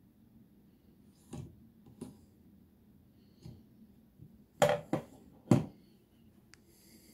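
A Blum Tip-On unit being handled against a Movento drawer slide, giving a few light clicks, then set down on a plywood drawer bottom with three sharp knocks within about a second.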